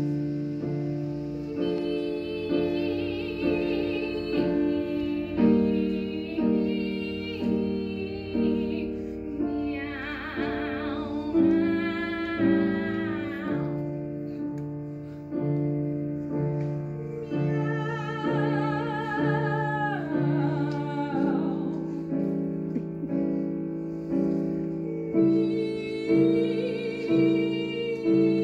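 Grand piano playing steady repeated chords while a soprano sings long, wavering operatic phrases over it, in a comic duet of sung meows.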